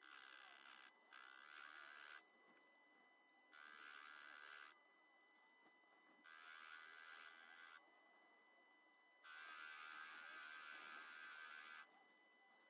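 Proxxon PD 250 mini lathe turning steel rebar with a carbide insert tool: a faint cutting sound comes and goes in five stretches of one to two and a half seconds, the longest near the end, over a faint steady whine.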